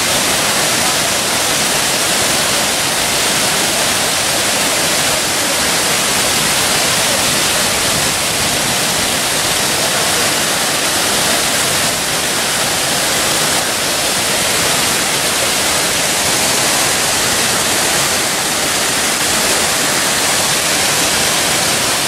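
Tall waterfall plunging into a rocky pool: a loud, steady rush of falling water with no breaks.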